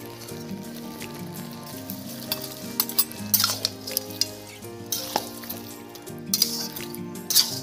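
Metal spatula stirring and scraping chopped bottle gourd and fish heads around a metal wok while the food sizzles, with several sharp scrapes from about three seconds in. Steady background music underneath.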